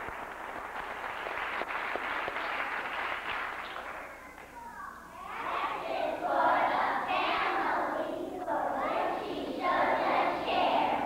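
Clapping and crowd noise in a hall die down over the first few seconds. Then a group of young children shouts a cheer in unison, in loud chunks about a second long with short breaks between them.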